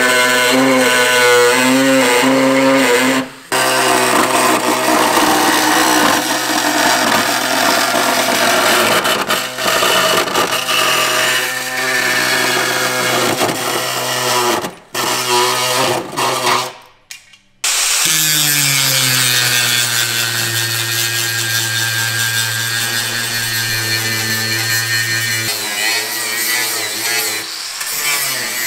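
Pneumatic air saw running, its blade chattering through rusted, pitted steel in a car's rear wheel arch to cut out the rotten metal. About 17 s in the tool stops briefly. A powered cutting disc then starts with a steady high whine, grinding into the steel.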